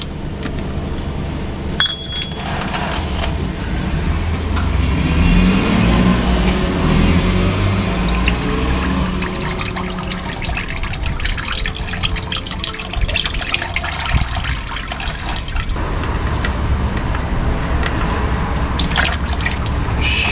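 A stream of used engine oil pouring and splattering down from the oil filter mount after the filter is unscrewed, with a sharp click about two seconds in. Music plays underneath.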